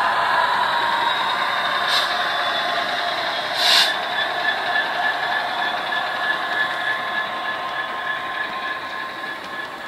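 Model Class 66 diesel locomotive's DCC sound decoder playing a Class 66 engine sound through a bass-reflex speaker and a small phone speaker as the model runs away with its freight wagons, slowly getting quieter. A brief hiss about four seconds in.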